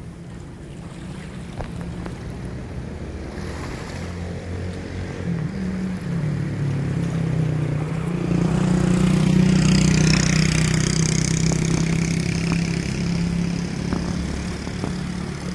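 A motor engine's steady hum swelling to its loudest about ten seconds in and then easing off, as of a vehicle passing close by, with wind rushing on the microphone.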